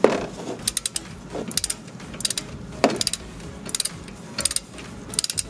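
Ratchet head of a click-type torque wrench clicking in short quick runs, about one run every three-quarters of a second, as it is swung back and forth running down a rear brake caliper bolt. There is a dull metal knock at the start and another about three seconds in.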